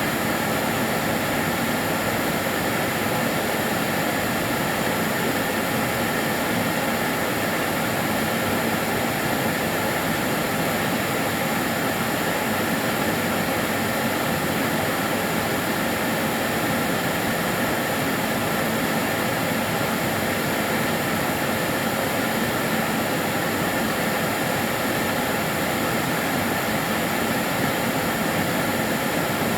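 Karcher DS 6 Premium water-filter vacuum cleaner running steadily: a constant whooshing motor noise with a faint high whine, no change in pitch or level.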